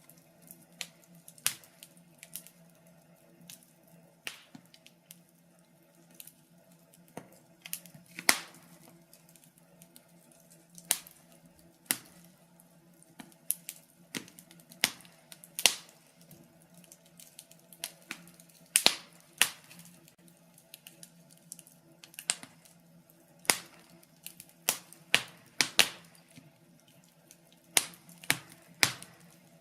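Wood fire crackling in a fireplace: irregular sharp pops and snaps, a few much louder than the rest, over a faint steady hum.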